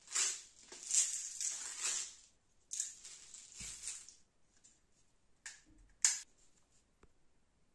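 Small plastic BBs rattling in a plastic bottle in several shakes as they are poured into a toy Uzi BB gun's plastic magazine, then two sharp plastic clicks as the magazine is handled, the second and louder one about six seconds in.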